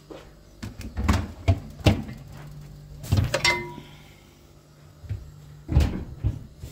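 Footsteps on a hard floor and a refrigerator door being opened and shut, with a glass bottle clinking and ringing briefly as it is taken out of the fridge about three seconds in, and a heavier thump near the end as the door closes.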